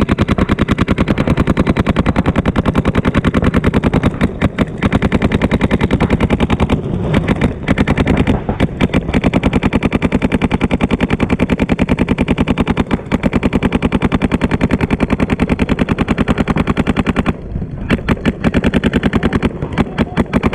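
Paintball markers firing in long rapid streams, many shots a second, with a few short breaks.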